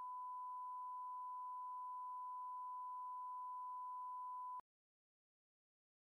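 Steady electronic test tone, one pure high pitch at a constant level, that cuts off suddenly about four and a half seconds in.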